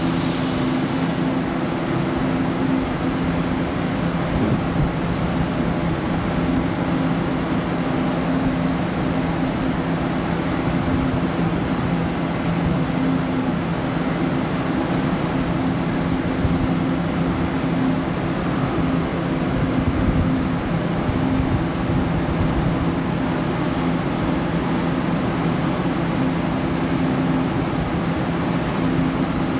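Passenger train standing at a platform with its on-board machinery running: a steady, unchanging low hum with a faint high whine above it.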